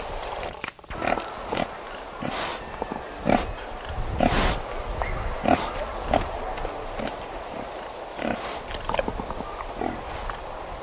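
Pigs grunting in short repeated calls about a second apart, some louder and higher-pitched than others. There is a brief dropout just under a second in.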